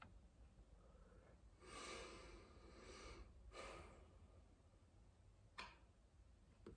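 Faint breathing of a woman smoking a cigarette: a long, soft breath about two seconds in and a shorter one about a second later, as she draws on the cigarette and blows out smoke. A single soft click comes near the end.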